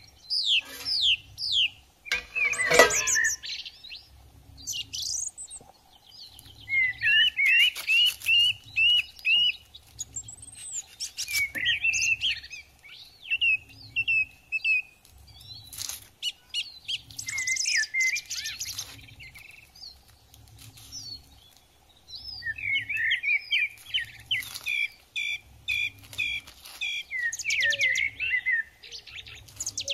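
Small birds chirping and singing, several at once, in quick runs of repeated sweeping notes. Beneath them is a faint low pulse about once a second.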